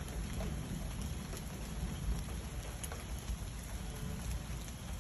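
Steady rain in a thunderstorm, with scattered drops ticking and a low rumble underneath.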